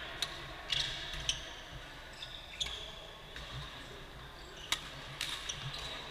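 Badminton rally on an indoor court: sharp racket-on-shuttlecock hits at irregular intervals of a second or so, mixed with squeaks of court shoes on the floor.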